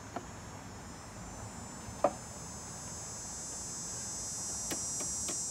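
Insects droning in a high, steady whine that grows a little louder toward the end. A single sharp knock about two seconds in, and a lighter click near the start.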